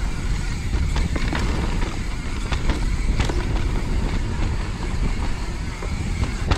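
Mountain bike riding fast down a wet, rooty trail: a steady low rumble of tyres and rushing air, with frequent sharp clicks and knocks as the bike rattles over roots.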